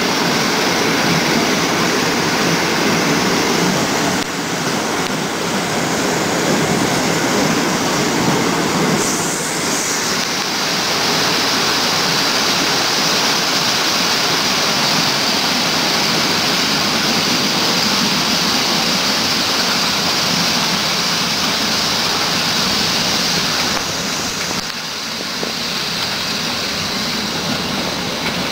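Passenger train running along the line, heard from aboard: a steady rumble of wheels on rail with rushing noise. A higher hiss joins about a third of the way in, and the noise eases a little near the end.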